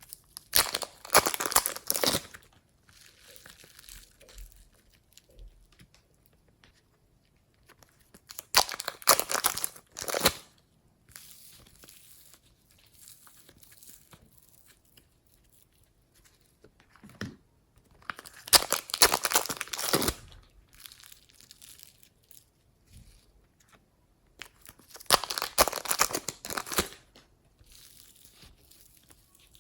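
Clear slime being stretched and squeezed by hand close to the microphone, in four loud bursts of sticky, crackly noise about two seconds each, with softer handling sounds between.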